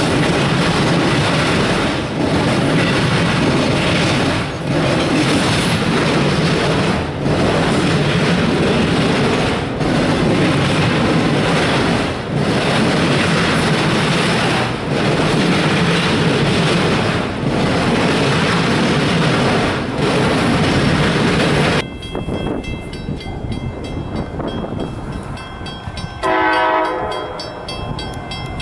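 A freight train of autorack cars rolling past close by, a loud steady rumble that dips briefly about every two and a half seconds, once per car. After a sudden change about 22 seconds in, it is quieter, and an approaching Metra commuter train's horn sounds one short blast near the end.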